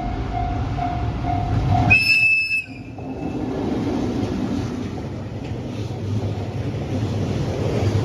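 Freight train hauled by an EF81 electric locomotive running past, with a steady low rumble of wheels on rail. Early on a bell-like ding repeats two to three times a second and stops about two seconds in; a brief high whistle tone follows.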